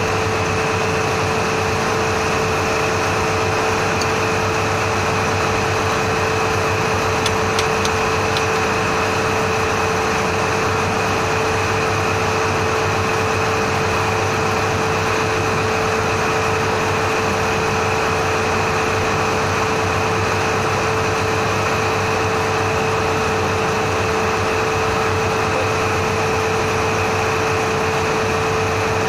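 Steady drone of running machinery, a fan-like rush with a constant mid-pitched hum and a fainter high whine, unchanging throughout; a few faint light ticks about seven to eight seconds in.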